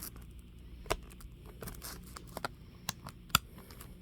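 Plastic shrink-wrap on a CD album being picked at and peeled off, crackling with a few sharp clicks, the loudest about three and a half seconds in.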